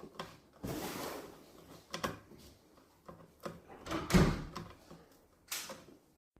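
Hands handling the parts of a robotic lawn mower's blade disc: a series of clunks, rubs and knocks, with the loudest thump about four seconds in and brief hissing noises about a second in and near the end.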